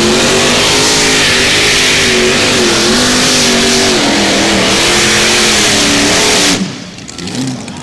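Engine of a modified pulling tractor running loud at high revs under load, its pitch wavering up and down as it drags the sled. The sound cuts off suddenly near the end.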